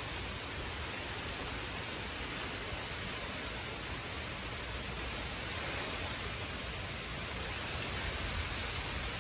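Strong storm wind blowing through the trees, a steady rushing noise that swells a little near the end.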